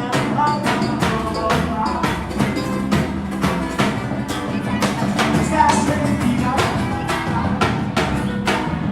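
Live Brazilian band music with a steady, driving percussion beat and tambourine, in a festive carnival style.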